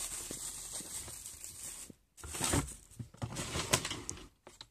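Plastic bags rustling and crinkling as things are handled in a plastic storage drawer, then, after a brief gap, a few knocks and scrapes from the plastic drawer unit.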